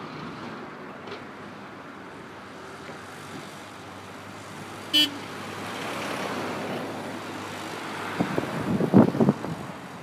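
Steady hum of construction machinery engines at a road-building site, with one short beep about halfway through and wind buffeting the microphone in loud gusts near the end.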